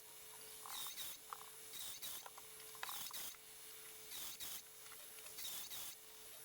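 Faint, repeated scraping strokes of a hand tool cutting a lead-screw nut down to size, about one stroke every half second to a second.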